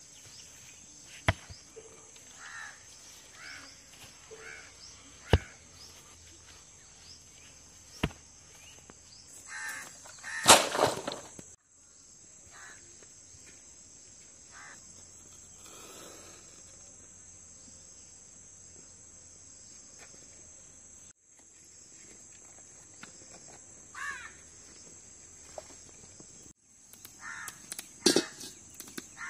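Crows cawing in short runs over a steady high insect drone, with a few sharp knocks early on and one louder noisy burst about ten seconds in.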